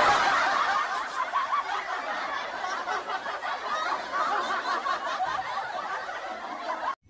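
Canned laughter: a crowd laughing and snickering all at once, starting abruptly and cut off sharply near the end.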